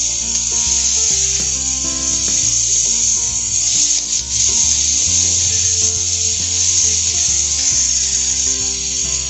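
Chopped green beans, onion and chili sizzling in a hot frying pan as they are stirred with a wooden spoon, a steady frying hiss, with background music playing underneath.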